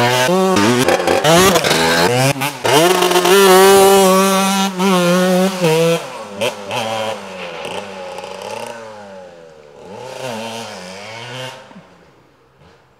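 Gas Gas EC 125 two-stroke enduro motorcycle engine revving hard, its pitch rising and falling, then held at high revs for a few seconds. About six seconds in it drops to a quieter level, still revving up and down, and fades out near the end.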